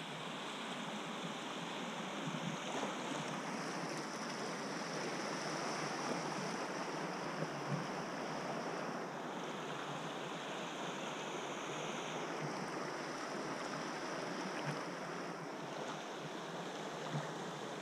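River current rushing steadily through a riffle around a drift boat, with wind buffeting the microphone and a few small knocks now and then.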